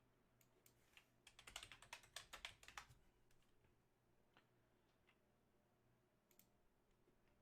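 Faint typing on a computer keyboard: a quick run of keystrokes starting about a second in and lasting under two seconds, followed by a few single clicks.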